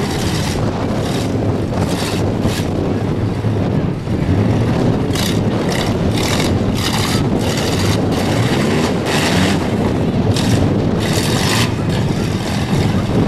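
Engines of several demolition derby vans running and revving loudly, with frequent short bursts of noise over the low engine rumble.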